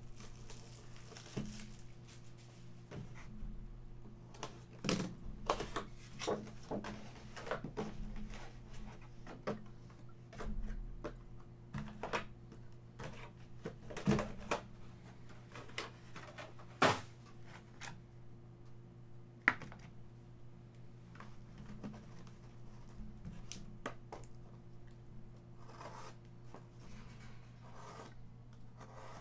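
Shrink-wrapped trading-card boxes being handled and stacked on a table: irregular clicks, taps and crinkles of the plastic wrap, the sharpest two about halfway through. A steady low electrical hum runs underneath.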